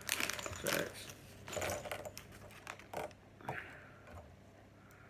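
A thin clear plastic parts bag crinkling in the hands. Then a few light clicks and taps of small Lego minifigure pieces on a tabletop, spaced out and fading to near quiet.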